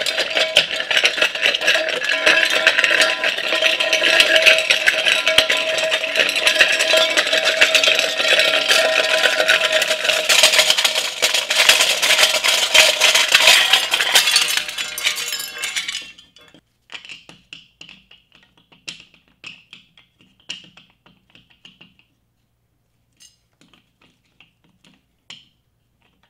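Experimental noise music: a dense, loud rattling and clattering over a few steady held tones, which cuts off suddenly about sixteen seconds in. Scattered faint clicks and ticks follow.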